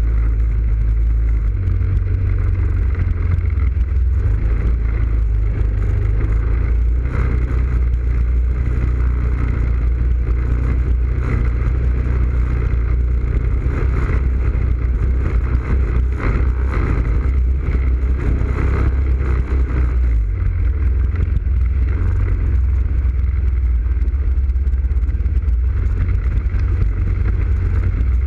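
ATV engine running under way on a muddy trail, a steady low engine note that shifts in pitch about a second and a half in and again about two-thirds of the way through, with scattered knocks and mud splashing as the quad goes through the ruts.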